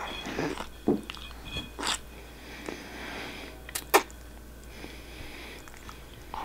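A person eating spaghetti face-first from the plate: messy chewing with irregular sharp smacks, the loudest near four seconds in.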